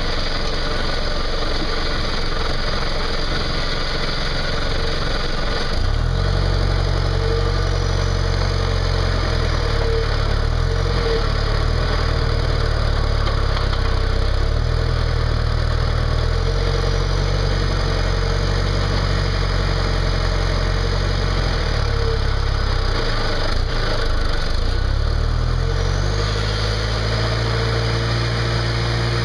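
John Deere tractor engine running as the front loader spears and lifts a wrapped silage bale. The engine picks up about six seconds in and holds steady, drops briefly about three quarters of the way through, then revs up again as the tractor moves off.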